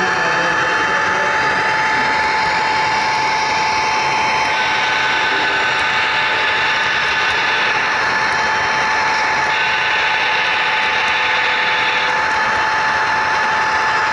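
HO scale model train running along the track: the steady whir of a small electric motor and gearing with wheels rolling on rail, carrying a constant whine. Its upper hiss shifts in level every few seconds.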